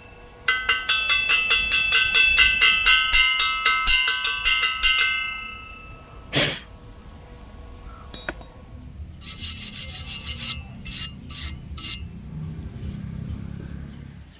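Rapid ringing strikes on steel, about four to five a second for the first five seconds, typical of a chipping hammer knocking slag off a weld. A single louder hit follows, then a quick flurry of sharper strikes and a few more taps.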